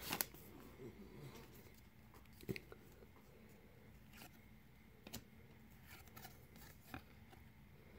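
Faint handling of a stack of baseball trading cards: a few soft clicks and rustles as the cards are shifted and flipped, the clearest about two and a half seconds in, otherwise near silence.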